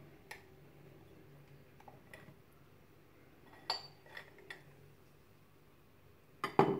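Metal spoon clinking and scraping against a glass bowl as flour is tipped out, a few light scattered clinks, then the glass bowl set down among other glass bowls with a couple of louder clinks near the end.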